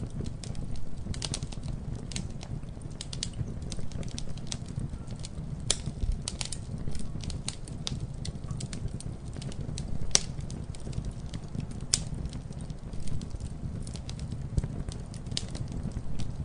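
Campfire crackling: irregular sharp pops and snaps of burning wood, a few louder ones scattered through, over a steady low rumble.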